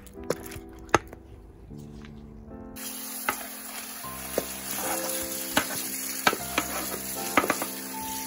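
Wooden pestle knocking in a stainless-steel bowl of crushed mitten crab, then, from about three seconds in, tap water running into the bowl and through a metal strainer. The pestle stirs and knocks against the metal as the crab paste is washed out. Background music plays throughout.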